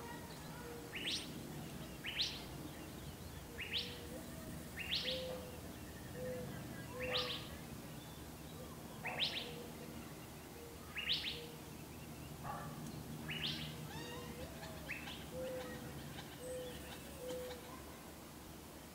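Gambel's quail chicks peeping as the hen broods them: short high chirps that rise in pitch, one every second or two, with soft low notes in between.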